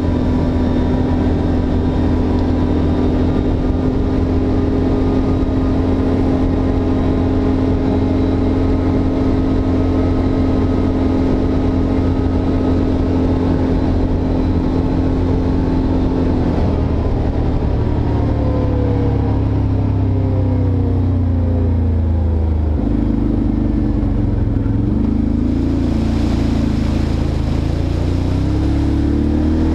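ATV engine running steadily at cruising speed; about halfway through its note drops, then rises and falls a few times as the throttle changes.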